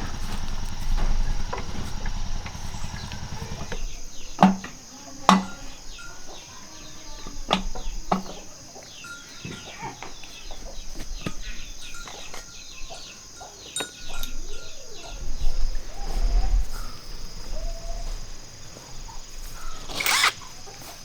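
A small engine runs with an even low beat for about four seconds, then stops. After that come scattered sharp knocks over a steady high insect chirr, with a few bird calls.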